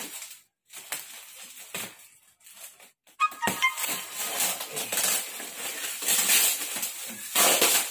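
Plastic wrapping on a parcel crinkling and rustling as it is pulled and handled. A few faint clicks come first, then a sharp click about three seconds in. Louder bursts of crinkling follow, the loudest near the end.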